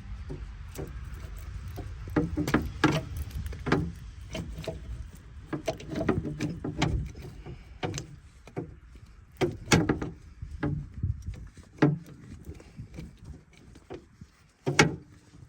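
Truck jack being cranked up with its curved handle rod: irregular metal clicks and clanks as the rod turns in the jack, over a low rumble that fades out about twelve seconds in.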